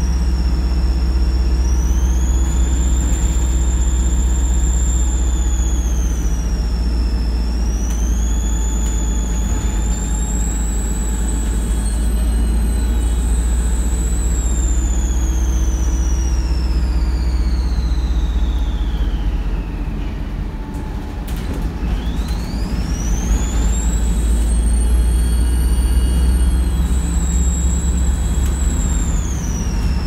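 Volvo B7RLE bus's turbocharger whistling over the low drone of its diesel engine, heard from inside the passenger saloon. The whistle glides up and down in pitch, sinks low about two-thirds of the way through while the engine sound eases, then climbs again soon after.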